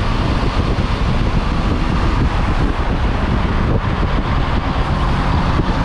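Motorcycle riding on the road: steady wind buffeting on the microphone over engine and road noise.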